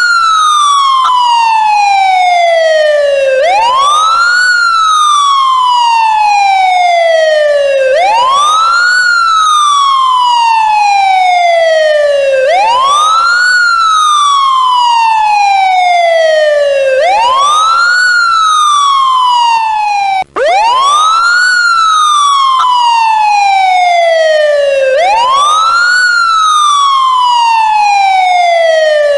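A siren wailing in a steady loop: each cycle rises quickly, then falls slowly, repeating about every four and a half seconds. It cuts out for a moment about twenty seconds in, then carries on.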